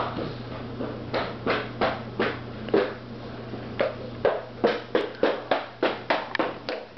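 A cat chewing a bird, with a run of short sharp crunches that come irregularly at first and then about three a second in the second half.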